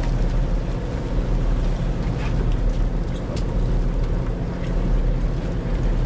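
Boat engine running steadily with wind and water noise.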